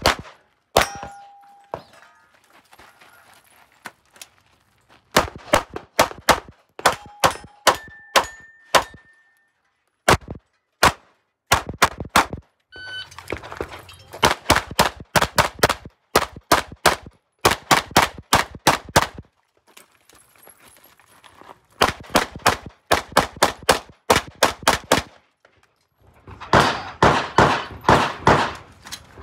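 Strings of rapid 9mm pistol shots from a Glock 17 Gen 5, fired in quick pairs and bursts with short pauses between strings. A few hits ring on steel targets, and a dense string of fast shots comes near the end.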